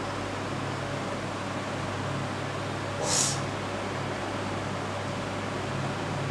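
Steady whirr and hum of an induction cooktop running under a pan of milk and rice, with one short scrape of a wooden spoon against the pan about three seconds in.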